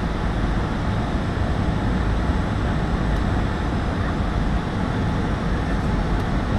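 Steady cabin noise inside an airliner on its landing approach: engine and rushing airflow sound, heaviest in the low range, with no change in level.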